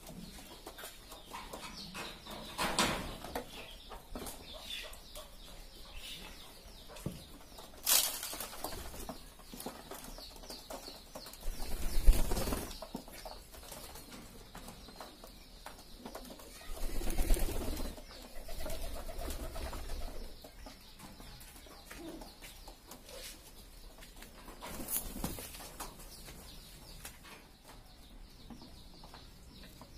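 Racing pigeons cooing, with several short bursts of wing flapping spread through, the loudest two near the middle.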